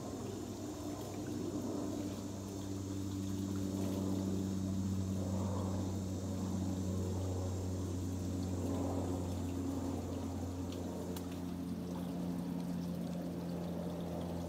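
Cold spring water pouring and splashing as a man scoops it up to wash himself, over a steady low hum.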